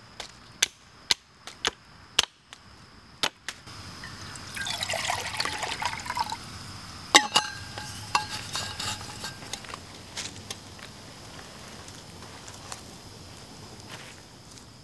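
A series of sharp knocks from a hatchet chopping sticks. Then water is poured into a metal camp pot, and a single metal clank rings on for about two seconds.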